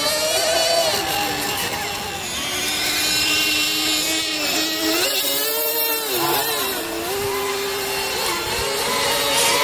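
Radio-controlled racing boat's motor running at high revs, a steady whine whose pitch rises and falls as the throttle changes, dipping for a moment about halfway through.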